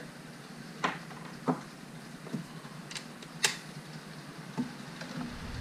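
Scattered sharp metal clicks and clinks, about six spread a half-second to a second apart, as sockets and an adapter are handled and fitted onto a cordless impact driver.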